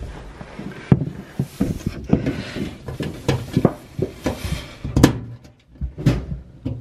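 Scattered knocks, clicks and rustling from hands working at the back panel of a washing machine, fitting a plastic cap over a shipping-bolt hole. The sharpest knocks come about a second in and about five seconds in, with a stretch of rustling between them.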